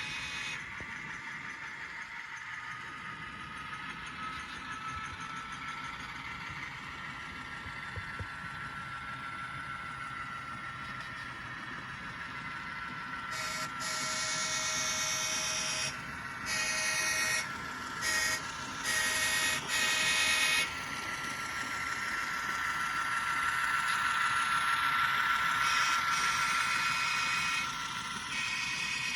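Sound of a GE C44-9W diesel locomotive played through the model's small speaker: the engine runs steadily, its pitch slowly rising. From about 13 s in, the horn sounds in a series of blasts, some long and some short.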